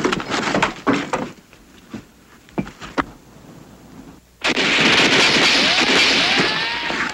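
Battle sound effects of shellfire: a few sharp cracks in the first three seconds, then a short lull, and about four and a half seconds in a sudden loud rush of an incoming shell with a whistle that rises and then falls.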